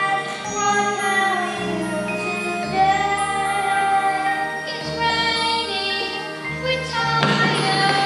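Music with a sung melody over a bass line that moves to a new note every second or so.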